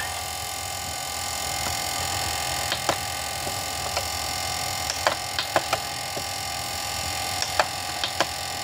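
Steady electrical hum with a few scattered sharp clicks.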